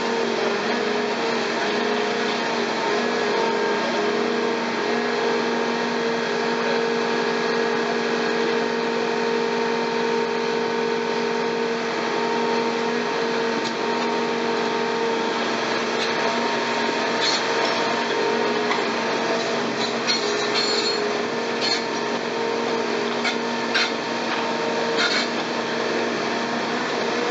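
Caterpillar excavator engine running steadily, a constant drone. From about halfway on, scattered sharp cracks and snaps come through it as a hydraulic demolition crusher bites into concrete.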